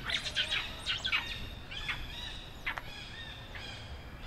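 A flurry of short, high-pitched squeaking calls, dense in the first second and then thinning to a few single calls, one of them sliding down steeply in pitch.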